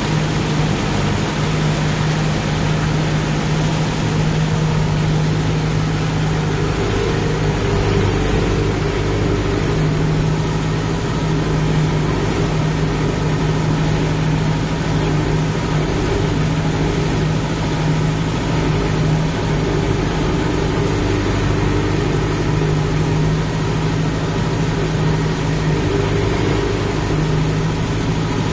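Kubota MU 5502 tractor's four-cylinder diesel engine running steadily under load while it works a rotavator through puddled paddy mud.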